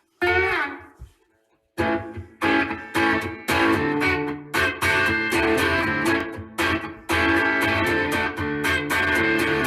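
Guitar starting a song: one chord that slides down in pitch and fades, a brief pause, then steady rhythmic strummed chords.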